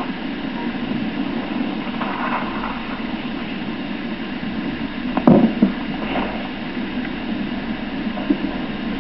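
Steady background hiss and rumble of an outdoor recording, with one sharp knock a little past halfway through.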